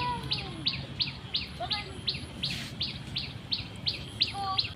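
A bird repeating a short, high chirp over and over at an even rate, about three a second.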